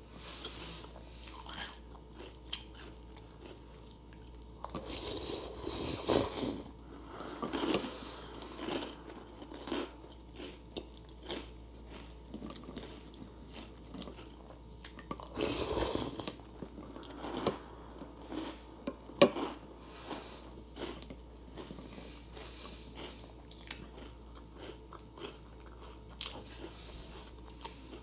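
Someone chewing and crunching food close to the microphone: a string of short crunches, with louder bouts of chewing about five seconds in and again around fifteen seconds in, and one sharp click a little after that.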